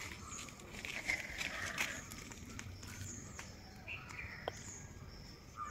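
Faint outdoor background: small birds chirping now and then, with scattered light clicks.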